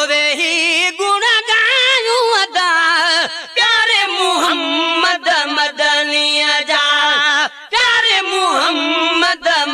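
A solo voice singing a Sindhi naat, a devotional song in praise of the Prophet Muhammad, with no instruments. The long held notes waver with heavy vibrato and sliding ornaments, in phrases broken by short breaths.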